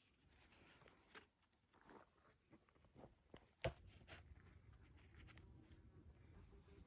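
Near silence with faint scattered clicks and rustles and one sharper click a little past halfway.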